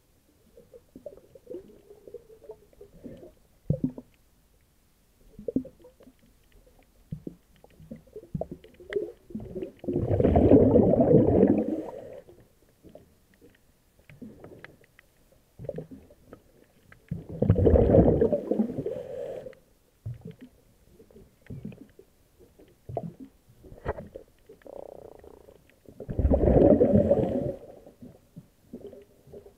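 Scuba diver's exhaled breath bubbling out of the regulator underwater, three long gurgling bursts about every eight seconds, with small knocks and rustles between.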